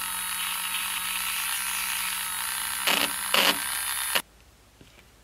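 Small electric hobby paint mixer whirring steadily as its thin metal shaft stirs acrylic paint in a small glass jar. It briefly gets louder twice, about three seconds in, then cuts off suddenly near the end.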